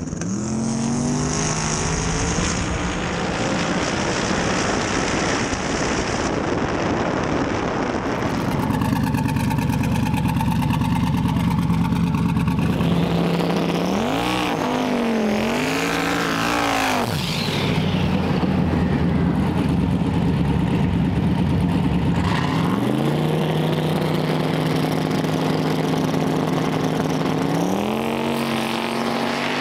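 Drag race car engines at high revs: several launches in which the pitch climbs as the cars pull away, and a stretch near the middle where an engine is revved up and down while staging.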